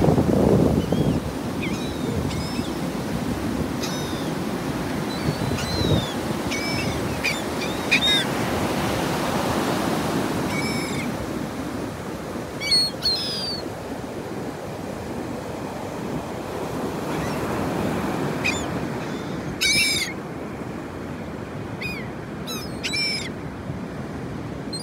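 Ocean surf breaking and washing up the beach as a steady rush, a little softer in the second half. Short calls from a flock of laughing gulls come throughout, in a burst around the middle and a denser run of calls in the last few seconds.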